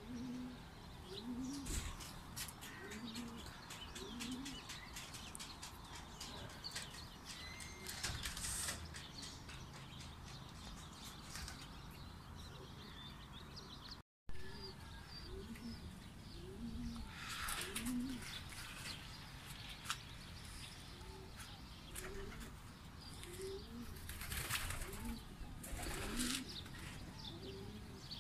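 Homing pigeons cooing over and over in short, low, rolling coos, with wing flapping now and then that is strongest near the end. The sound drops out for a moment about halfway through.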